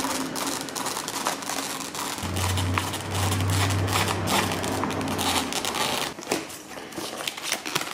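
Small screwdriver driving nylon screws through a foam model plane's top hatch into the fuselage: many small clicks with crackling and creaking of foam and plastic. A low steady hum comes in about two seconds in and stops a few seconds later.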